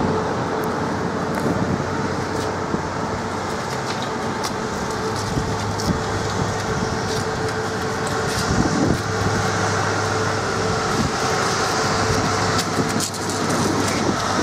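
South Western Railway third-rail electric multiple unit moving slowly along the platform: a steady motor hum over wheel and rail noise, with scattered sharp crackles from the collector shoes arcing on the icy third rail.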